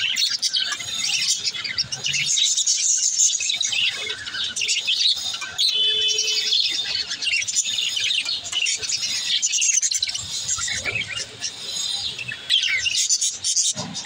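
Budgerigars chattering: a dense, continuous run of quick high chirps and warbles.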